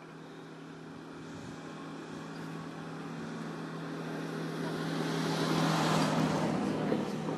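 A passing motor vehicle's engine: a steady hum that grows louder over about six seconds, then eases off near the end.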